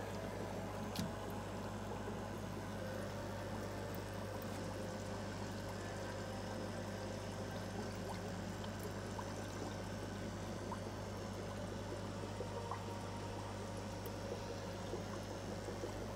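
Steady bubbling and trickling of water from air-driven sponge filters in a fish tank, over a constant low hum.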